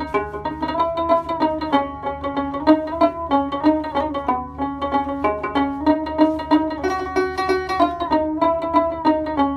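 Background instrumental music: quick plucked string notes over a string melody, in a steady rhythm.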